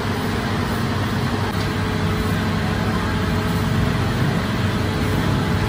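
Steady low machine hum with a rushing noise over it, from bakery machinery running without a break.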